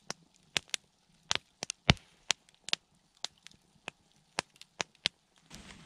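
Wood campfire crackling: burning logs giving off irregular sharp pops and snaps, with one louder pop about two seconds in.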